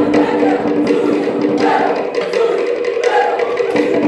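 A group singing a Cook Islands Māori song in chorus to a strummed guitar, with held notes and a regular percussive beat.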